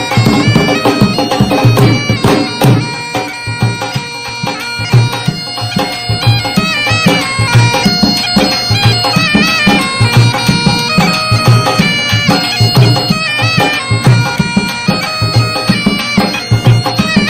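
Background music: a reedy wind-instrument melody over a steady drum beat.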